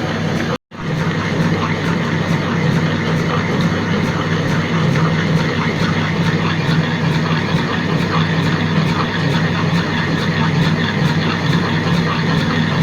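Comport Plus smart wet grinder running steadily, its motor humming as the grinding stone turns through urad dal batter. The sound drops out briefly about half a second in.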